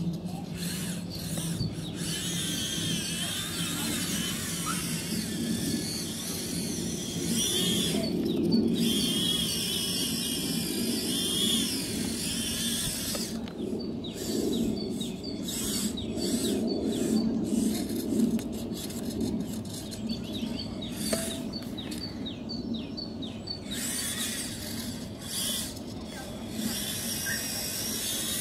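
The small electric drive and lift motors and gearboxes of a Bruder CAT compact loader model whine and squeal as it drives and works its bucket in sand. The whine wavers in pitch and starts and stops again and again.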